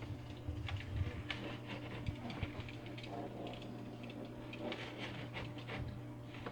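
AQQA 20 W electric aquarium gravel vacuum running with a steady low hum while cleaning the gravel, with scattered small clicks of gravel knocking in the nozzle.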